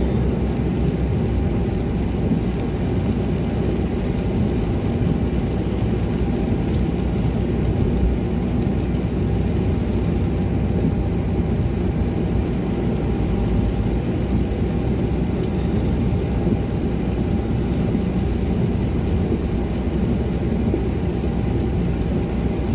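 Car driving on rain-wet city streets, heard from inside the cabin: a steady low rumble of engine and tyre noise on wet asphalt.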